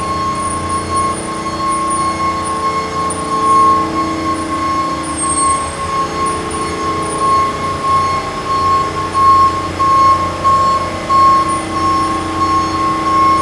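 Ambulance reversing: its backup alarm beeps steadily at an even pace over the truck's idling engine.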